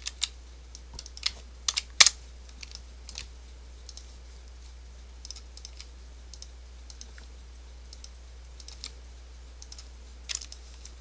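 Scattered sharp clicks of a computer mouse and keyboard, irregular and a few a second at times, the loudest about two seconds in, over a steady low hum.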